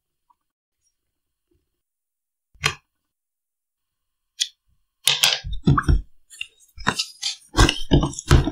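Scissors cutting packing tape on a cardboard keyboard box, with a single short snip, then the box being handled and flipped over, with a run of knocks, scrapes and rustling cardboard.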